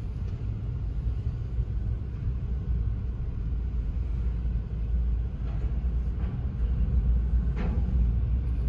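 Low steady rumble of a car rolling slowly forward, heard from inside the cabin, with a few faint knocks in the second half.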